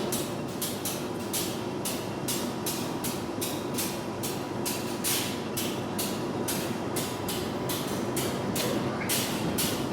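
Subway train running: a steady rumble with rapid, irregular clicks and rattles.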